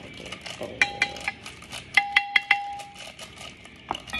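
Metal spoon clinking against a glass baking dish while stirring a seasoning mix: three ringing clinks about a second in, then a quicker run of four about two seconds in.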